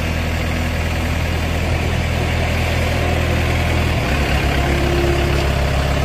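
Highway pile driver's engine idling steadily, its note changing about four seconds in.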